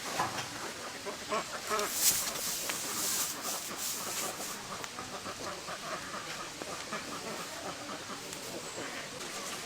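A flock of domestic ducks quacking, many short overlapping calls, louder and busier over the first few seconds, then settling into a fainter steady chatter.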